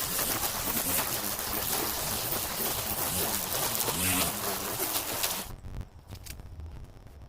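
Small battery-powered string trimmer running and cutting overgrown grass, its motor pitch rising and falling; it stops about five and a half seconds in.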